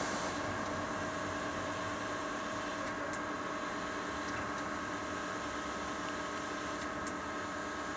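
Steady hiss of the 241P17 steam locomotive standing under steam, with a few held humming tones and occasional faint ticks.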